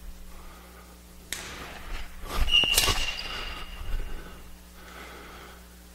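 Badminton footwork on an indoor court: a foot lands with a thud, a sneaker squeals on the court floor for about a second, and a sharp crack comes in the middle of the squeal. A lighter tap comes about a second in, and a softer footfall near four seconds.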